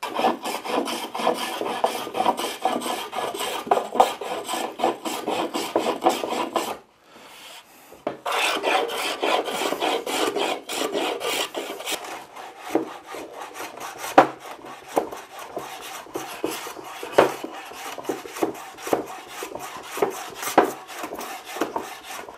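Block plane taking quick, repeated short strokes along the edges of a wooden stool, the blade scraping off shavings to round the sharp edges over. The strokes come thick and fast at first, break off briefly about seven seconds in, and after about twelve seconds come more spaced out and separate.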